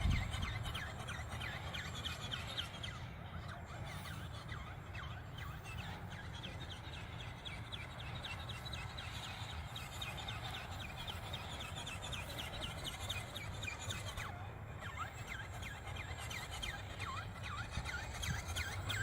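Wind rumbling on the microphone, with many quick bird chirps throughout.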